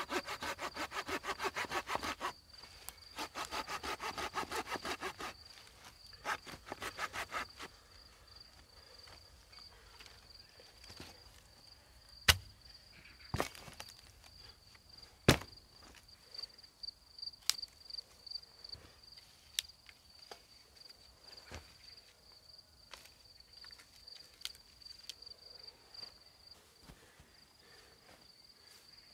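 Hand saw cutting wood in quick back-and-forth strokes, several a second, in two or three spells, then scattered clicks and a few sharp cracks of wood. A steady high cricket trill runs underneath.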